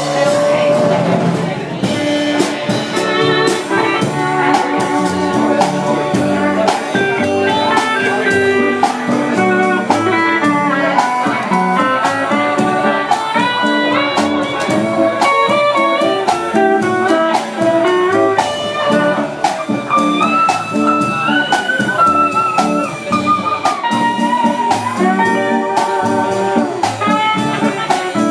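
Live honky-tonk band playing an instrumental break: a lead guitar line over bass, drums and steel guitar, with no singing.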